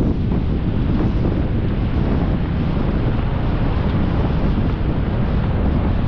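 Wind buffeting the microphone in a steady low rumble, with surf breaking on the beach underneath.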